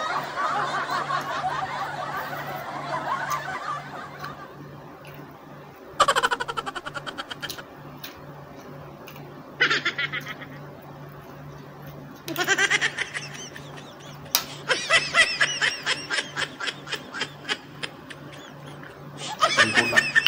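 Several separate fits of laughter, each a quick run of laugh pulses, after a continuous stretch of laughing at the start.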